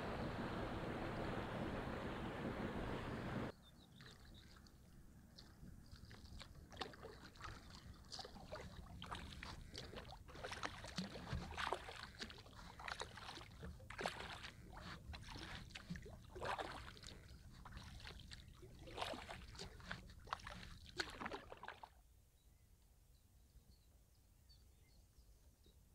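Canoe paddle strokes in river water: a run of irregular splashes and drips, following a steady rushing noise that cuts off abruptly about three and a half seconds in. The splashing stops about four seconds before the end, leaving only a faint low background.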